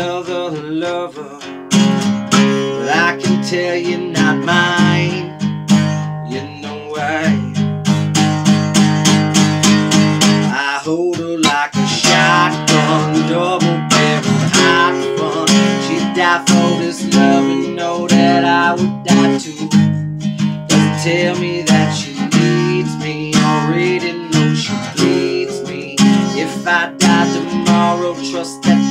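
Acoustic guitar strummed in a steady rhythm, with a short break a little after ten seconds in.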